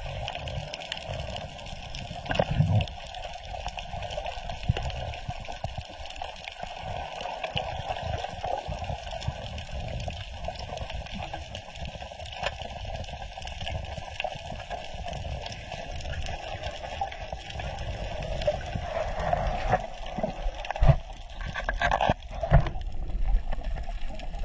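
Muffled underwater water noise picked up by a camera in its housing as a diver swims down, a steady gurgling wash with low rumbling. A few sharp knocks come near the end.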